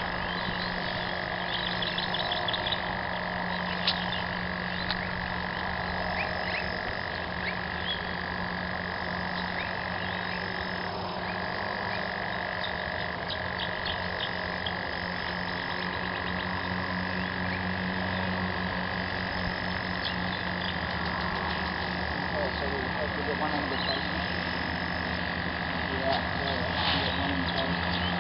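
Frogs calling in a steady, unbroken chorus, with scattered faint clicks.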